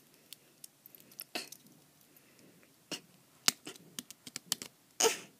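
A small keychain Rubik's Cube being twisted by hand: scattered short clicks of its plastic layers turning, with a light jingle from its metal key ring. The loudest clatter comes about five seconds in.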